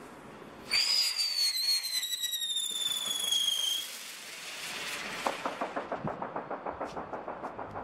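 Funke Tornado Wirbel flying-saucer firework whistling as it lifts off and climbs: a loud shrill whistle starting about a second in and sliding slowly down in pitch for about three seconds. After it, a fast, even pulsing of about seven beats a second.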